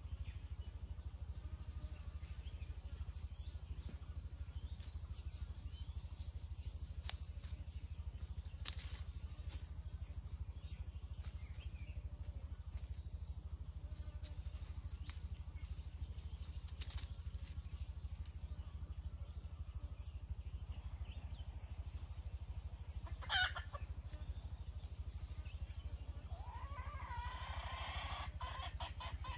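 Wild jungle fowl calling over a steady low hum: a few faint clicks, one short sharp call about three-quarters of the way through, then a run of rapid clucking near the end.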